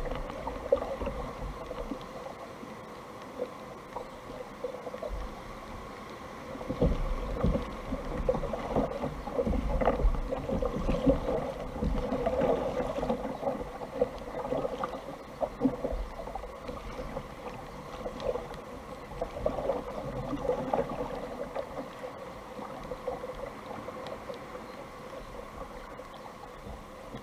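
Water splashing and lapping around a sit-on-top fishing kayak on choppy sea, with paddle strokes dipping into the water, the splashes coming irregularly and most often in the middle part.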